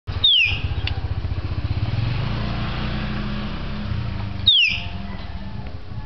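Caged hill myna giving two loud, sharp whistles that fall in pitch, about four seconds apart, over the low pulsing run of a motorcycle engine.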